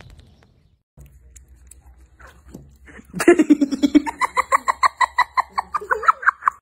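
A person laughing hard in rapid, high-pitched bursts, starting about three seconds in.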